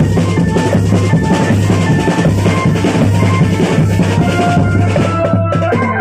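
Loud drum-led music with a melody of short held notes over steady beating percussion, accompanying a bird-costume dance.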